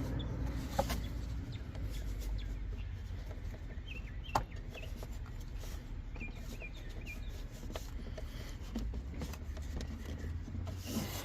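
Rubbing and handling noises with a couple of sharp clicks as an oiled VANOS solenoid is worked and pushed into its bore in the engine.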